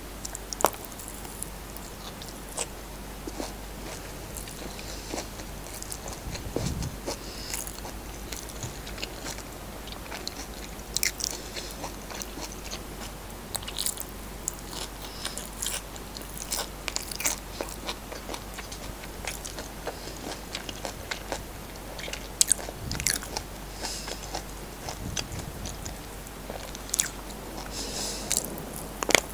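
A person eating by hand: chewing and biting mouthfuls of fried rice, corned beef and salted egg, and biting into whole okra pods, with many short crisp crunches and clicks scattered through and a few soft low thumps.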